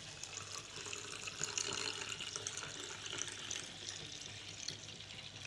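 Water pouring in a thin, steady stream from a small clay pot onto raw rice in a miniature clay pot, filling it to wash the rice.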